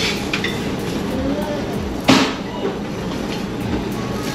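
Metal serving tongs clack once, sharply, against a stainless-steel chafing dish about two seconds in, with a few lighter clicks near the start. Under it runs a steady low hum from the ferry.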